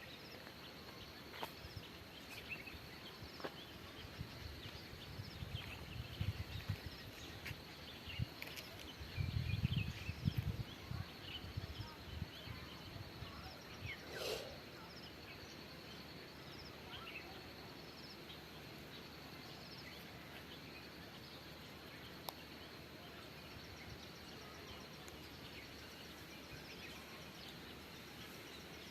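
Faint forest ambience: insects trilling steadily in a high band, with scattered short bird chirps. Low rumbling rises twice in the first half, strongest about ten seconds in, and a single sharp sound comes a little after the middle.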